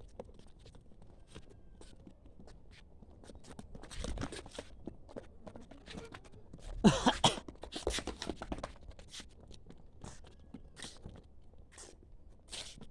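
Goats chewing and crunching feed: many short, irregular crunches and rustles, with a louder burst about seven seconds in.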